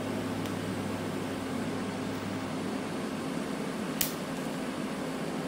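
TIG welding arc buzzing steadily as filler rod is added to build up the end of a steel vise handle, with the welder's steady hum underneath. A low part of the hum drops out a little past three seconds, and there is one sharp tick about four seconds in.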